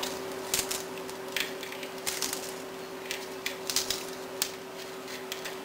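Crispy cooked bacon being crumbled by hand: light, irregular crackles and snaps as the strips break apart between the fingers, over a steady faint hum.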